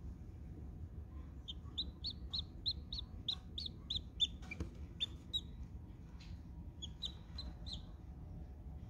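Newly hatched chick peeping: a quick run of short, high peeps, about four a second, then a few scattered peeps.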